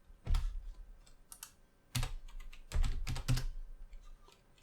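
Computer keyboard keystrokes: a handful of separate key presses spread over a few seconds, typing a rotation value.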